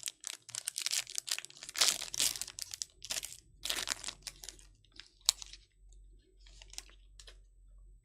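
A trading-card pack wrapper being torn open and crinkled by hand, with dense crackling for the first four seconds or so, a sharp click a little after five seconds, and a few lighter crinkles near the end as the cards are taken out.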